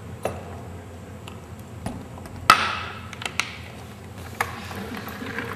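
Containers and lab glassware being handled and set down: scattered light taps and clicks, with one sharper knock that rings briefly about two and a half seconds in.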